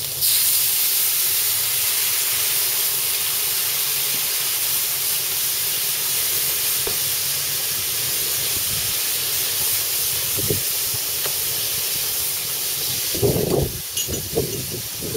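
Seared shrimp in a hot stainless sauté pan sizzling hard as ouzo is poured in to deglaze: a loud, steady hiss of the spirit boiling off that starts abruptly. A few short knocks near the end.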